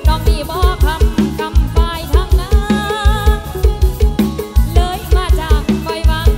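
Thai mor lam song played live through a loud sound-truck system: a wavering sung melody over a heavy, fast, steady bass-drum beat.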